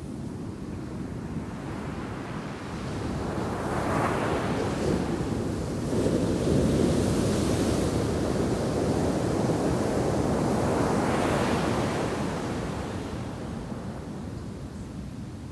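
Ocean shore-break waves crashing onto a sandy beach: the surf swells about three seconds in, a big wave breaks about six seconds in, and its wash runs on before easing off near the end.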